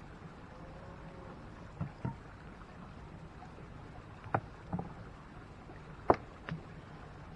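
A handful of short, light knocks and clicks from camp gear being handled and set down, the sharpest about six seconds in, over a steady low background hiss.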